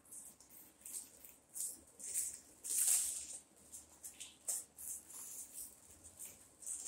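Packaging rustling and crinkling in irregular bursts as products are unwrapped and handled, loudest about three seconds in.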